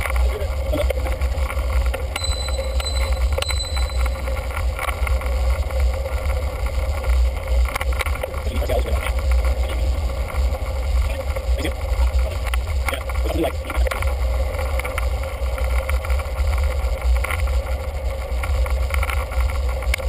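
Wind buffeting and riding noise on the microphone of a bicycle-mounted camera, a steady loud rumble with scattered clicks and rattles, sped up fourfold. A few short high beeps sound about two to four seconds in.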